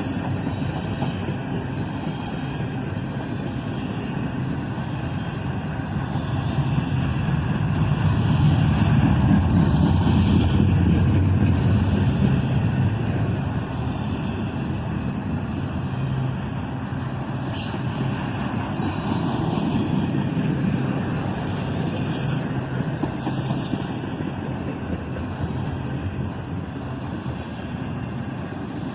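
Freight train cars rolling past on the rails: a steady low rumble of wheels on track that swells about eight seconds in and then eases, with a few brief sharp high squeals or clanks in the second half.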